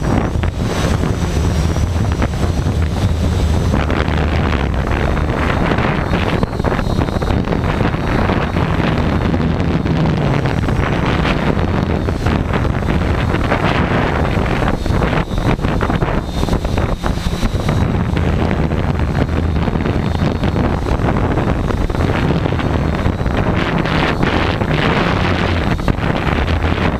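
Strong wind buffeting the microphone in uneven gusts, with the faint high whine of a Tarot 680 hexacopter's brushless motors showing through at times.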